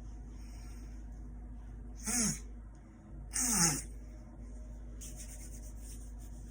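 A woman makes two short, forceful bursts of breath and voice, each falling in pitch, about two seconds in and again a second later.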